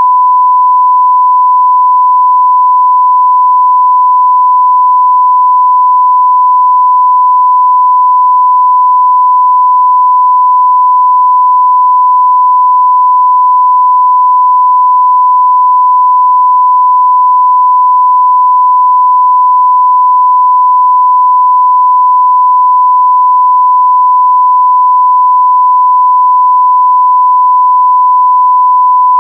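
Censor bleep sound effect: one pure, steady tone held without a break.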